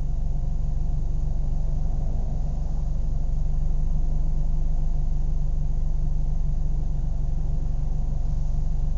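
Car engine idling steadily, a deep, even running sound without any revving.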